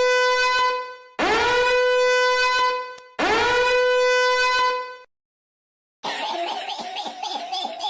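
Horn-like meme sound effect: three long blasts of one note, each scooping up into a steady tone that lasts about two seconds, the first already sounding as it begins. After about a second of silence, a different, rougher, wavering sound plays near the end.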